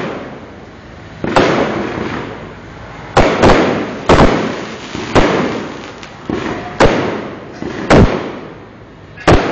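Fireworks going off in a rapid string of sharp bangs, roughly one a second, each trailing off in a rumbling echo.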